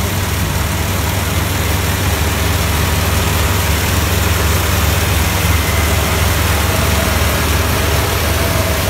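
Kubota Pro588-ig combine harvester running steadily, a continuous deep engine sound with broad mechanical noise over it.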